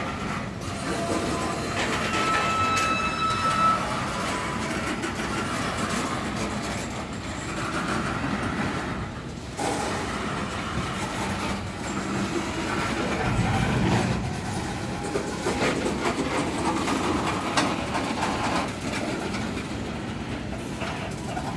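Freight train cars rolling past close by: steady rumble and clatter of steel wheels on the rails, with a brief high squeal about two to three seconds in.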